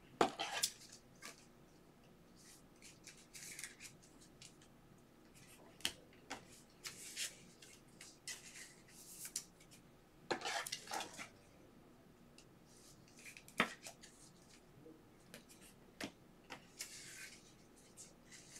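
Hands handling trading cards and clear plastic card holders: scattered light clicks and taps with brief rustles and scrapes of plastic.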